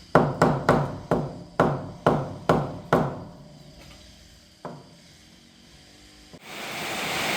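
A quick run of about eight hammer blows, each ringing briefly, then a single blow a moment later. Near the end, heavy rain suddenly comes in as a steady loud hiss.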